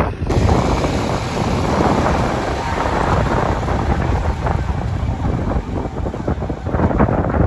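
Wind buffeting the microphone, a loud rumbling gusty noise.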